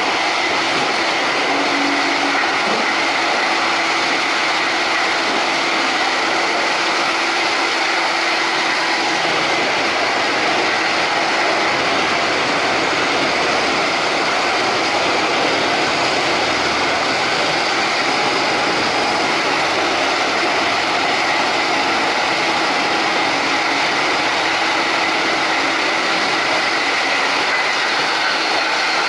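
Komptech Axtor 6010 universal shredder running steadily as an excavator feeds it wood: a loud, even machine noise with a faint constant whine.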